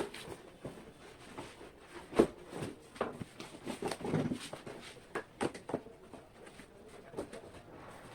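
Cardboard packaging being handled: irregular knocks, scrapes and rustles, with one sharper knock about two seconds in.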